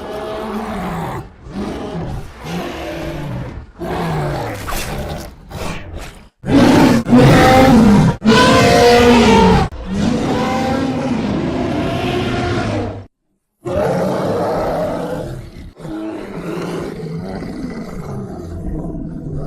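Creature sound effect made from bear recordings: a string of separate growls and roars with short gaps between them. The loudest and longest roars come between about 6 and 10 seconds in.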